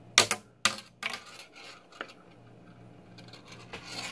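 A handful of sharp, light clicks and taps from small hard objects being handled, about five of them in the first two seconds.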